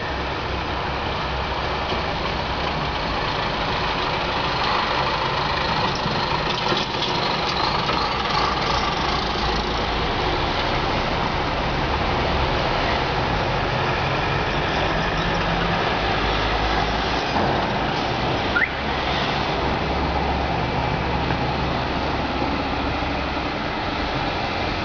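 Steady engine and traffic noise with a low hum, and a single short knock about three-quarters of the way through.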